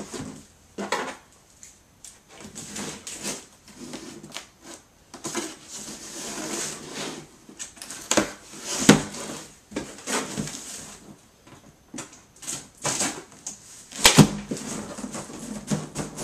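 Packaging and parts being handled during an unboxing: irregular knocks and clicks with rustling in between, the loudest knocks about nine and fourteen seconds in.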